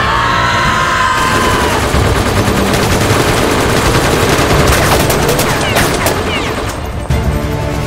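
Continuous sound-effect gunfire: rapid volleys of rifle and machine-gun shots firing together, with a falling whistle near the start.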